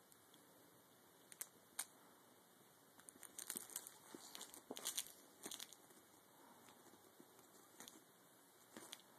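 Faint scratchy rustling and scuffing as a kitten claws, bites and kicks at a large plush toy mouse on carpet. It comes in bursts, with a couple of sharp ticks early and the densest scuffling from about three to six seconds in.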